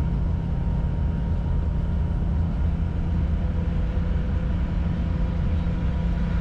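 1962 Chevrolet Greenbrier van's 80-horsepower air-cooled flat-six engine running steadily under load, pulling the van up a grade, with road noise: a constant low drone.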